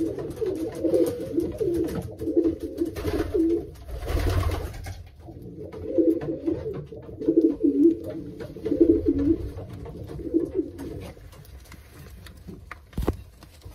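Racing pigeons cooing in the loft: repeated low, rolling coos, one phrase after another. A short rustle comes about four seconds in, and a single knock near the end.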